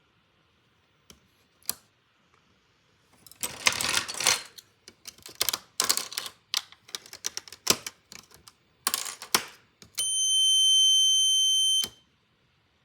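A run of sharp clicks and crackles, then a steady high-pitched electronic beep from a Snap Circuits transistor amplifier circuit, held for about two seconds and cut off suddenly.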